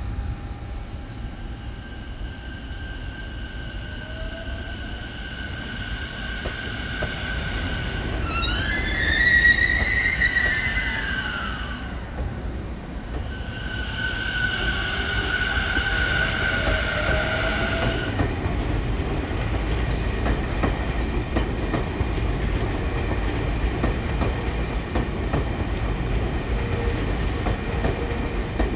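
Tobu Tojo Line electric train moving through a station: a high electric whine holds steady, rises and then falls in pitch about eight to eleven seconds in, and comes back steady a few seconds later. From about eighteen seconds on, the steady rumble of the train running on the rails takes over.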